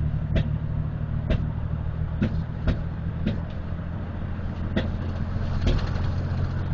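1997 Dodge Ram 1500's 3.9-litre V6 pulling at full throttle with a steady drone, broken about seven times at uneven spacing by sharp pops. The engine is misfiring, logged as P0300, P0302 and P0303 (cylinders 2 and 3).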